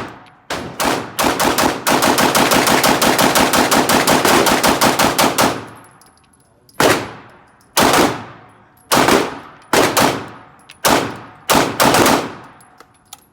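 Glock 17 9mm pistol fired at the range: a few quick shots, then a rapid string of shots dumped for about three and a half seconds, then about seven slower, evenly spaced shots, each with a short echo.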